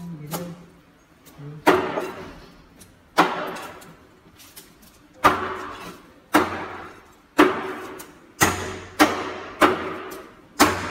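Heavy knife chopping through a fish carcass and bone on a plastic cutting board: about ten single sharp chops, each with a short ringing tail. They come one to two seconds apart at first and quicken to almost two a second near the end.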